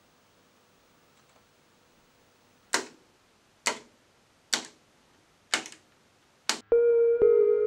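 Near silence at first, then five sharp, evenly spaced clicks about a second apart. Just before the end, electronic synth music with sustained tones comes in loudly.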